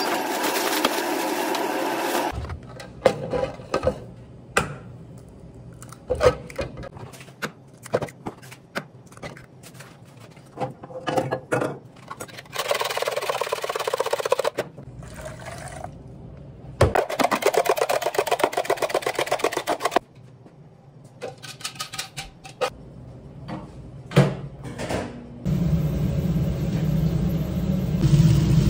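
Kitchen work sounds: scattered taps and clatters, then a fork whisking eggs in a plastic measuring jug with fast, even scraping strokes. Near the end a steady low rumble sets in as soup comes to a boil in a frying pan.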